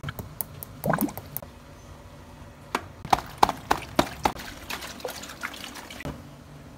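Huge water-filled rubber balloon being pressed by hand and trodden on: wet slaps, squelches and rubber squeaks, with water sloshing inside. They come in two runs with a short pause between.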